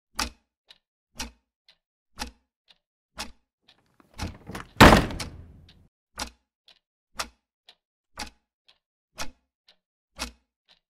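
Clock ticking steadily: a loud tick once a second with a softer tock between. A couple of soft knocks come about four seconds in, followed by one loud thud or slam that rings out over about a second.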